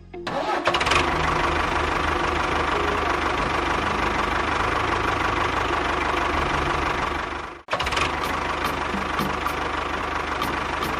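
A small motor running with a steady rattling clatter. It cuts out abruptly about two thirds of the way in, then starts again.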